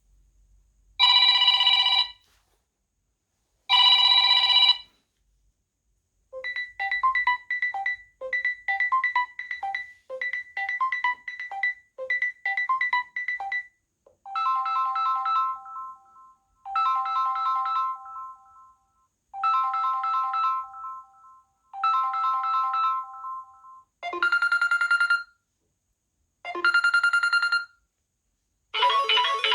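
Samsung Galaxy A71 ringtones played one after another through the phone's speaker. Two short rings near the start are followed by a quick run of short beeping notes, then a chime repeated four times with short gaps, then two more rings. A new tone starts right at the end.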